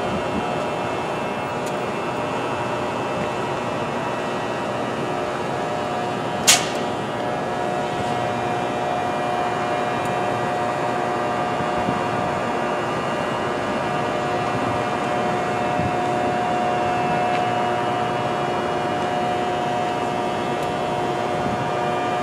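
NJ Transit ALP-46 electric locomotive standing with its cooling blowers and electrical equipment running: a steady hum with several held tones, one of them growing stronger about a third of the way in. A single sharp click cuts through about six seconds in.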